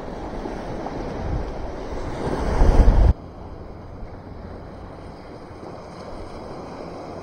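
Wind buffeting the microphone over waves breaking on a beach, swelling louder, then cutting off abruptly about three seconds in to a quieter, steady wash of wind and water.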